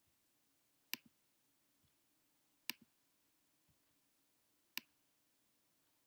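Computer mouse clicks: three sharp clicks about two seconds apart, with a few fainter ticks between, against near silence.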